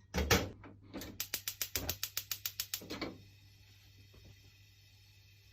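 A loud short clatter, then a run of rapid, evenly spaced mechanical clicks, about nine a second for about two seconds, like a ratchet turning.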